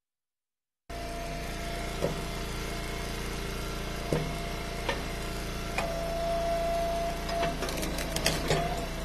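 Log splitter engine running steadily, with scattered sharp knocks and a burst of clatter near the end, typical of firewood being handled. The audio drops out completely for about the first second.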